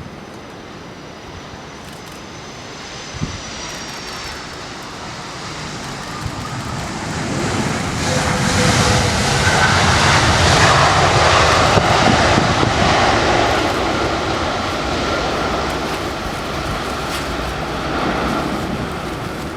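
Jet noise from an Airbus A330-300 airliner passing by, swelling to a peak about halfway through and then easing off, with a thin engine whine on top.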